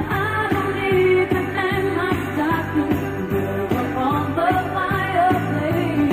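Upbeat pop song with singing over a steady beat, played as backing music for the routine.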